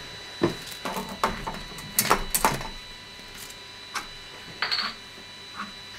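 Short sharp plastic clicks and knocks, mostly in the first half, with a brief hiss near the end: a plastic filament spool being handled and fitted onto a 3D printer's spool holder.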